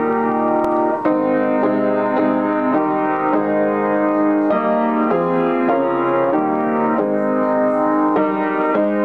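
Upright piano playing a hymn in full chords, the chords changing about twice a second at a steady pace.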